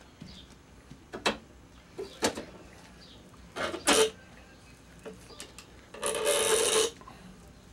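Gloved hands working a resin-wet carbon fiber sleeve around a muffler canister: a few short sharp clicks and crackles, then a rasping rub lasting nearly a second about six seconds in.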